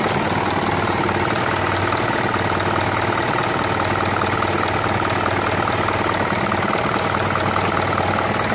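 Isuzu 4HL1 common-rail four-cylinder diesel engine idling steadily. It is running again after its no-start fault was cured by replacing the fuel pump and relay.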